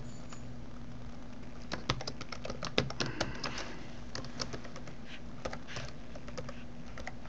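Typing on a computer keyboard: a quick, uneven run of key clicks that starts about two seconds in, over a low steady hum.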